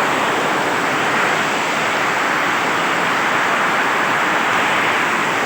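Heavy rain pouring down steadily, a dense even hiss with no separate hits, after the hail has stopped.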